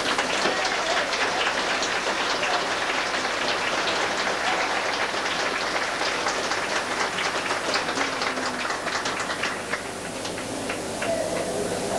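Audience applauding: a dense patter of clapping that thins out about ten seconds in.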